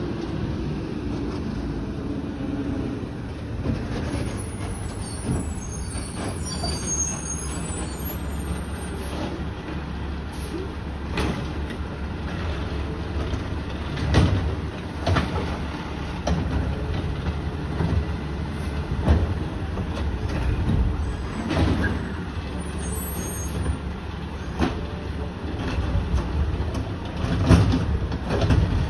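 Automated side-loading garbage truck's engine running steadily, with repeated clanks and knocks as its mechanical arm grabs, lifts and empties the curbside bins.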